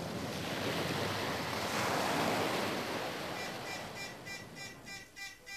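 Sea waves washing, fading out. About three and a half seconds in, an electronic telephone ringer starts trilling in short pulses, about three a second.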